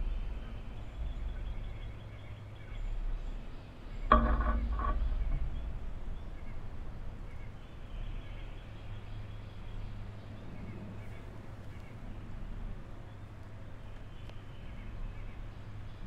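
Backyard outdoor ambience at a bird feeder: a steady low hum with faint bird chirps. About four seconds in comes one brief louder flurry of a few quick sounds lasting about a second.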